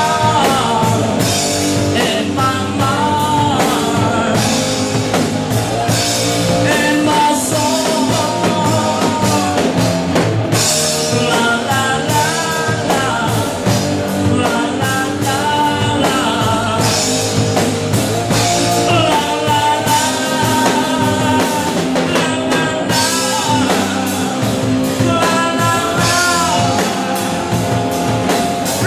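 Live rock band playing, with a drummer singing lead into a microphone over his own drum kit, backed by bass guitar.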